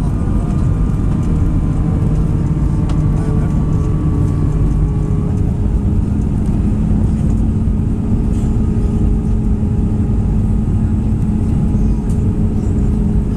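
Steady cabin noise inside an Airbus A319 on approach with its flaps extended: engine hum and rushing air. About five seconds in, the engine tone shifts higher.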